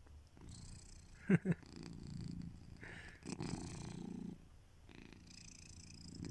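Sleeping domestic cat snoring, a rough purr-like rasp on about four breaths with short pauses between. One short, sharper and louder sound comes about a second in.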